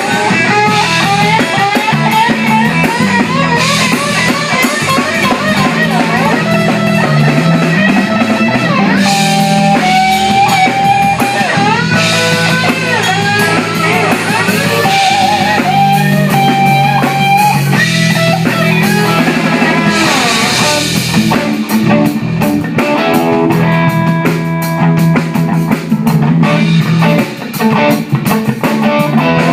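Live rock band playing: an electric guitar lead with wavering, bending notes over bass and a drum kit with cymbals.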